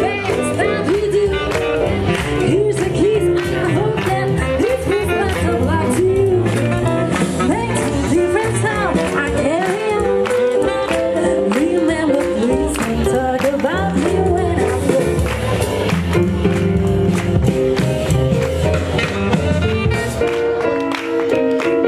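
Live swing jazz band playing an up-tempo number with a steady beat, saxophone, drums and a woman singing.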